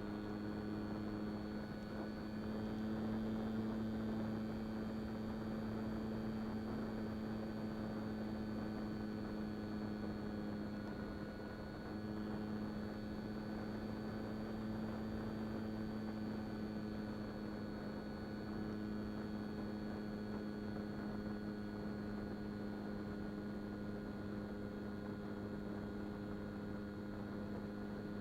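An RC plane's electric motor and propeller running at a steady cruise throttle: a steady hum with a thin high whine over it, briefly dipping about twelve seconds in.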